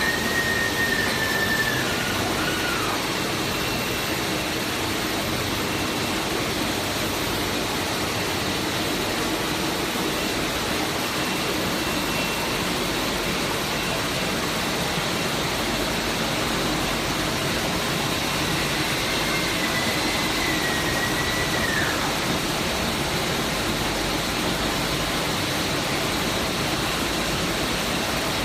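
Steady mechanical hum and hiss of an automatic six-head piston sauce filling line running on a factory floor. Two faint high tones come and go, one near the start and one about two-thirds of the way through.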